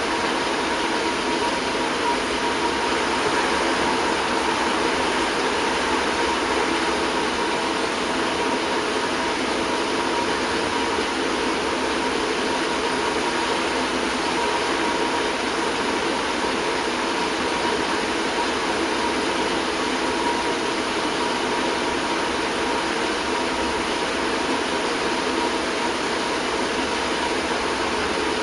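Steady mechanical hum over an even hiss, with a faint high-pitched whine held at one pitch; it does not change.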